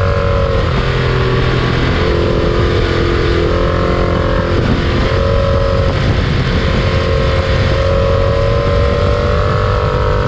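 Wind and road rush on a bicycle-mounted rear-view camera riding at racing speed, with a humming tone that shifts in pitch every second or two.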